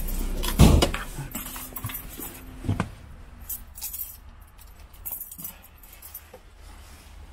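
Handling noise: a winter parka rustling and brushing against the microphone, with a thump about half a second in, a softer one near three seconds, and scattered small clicks.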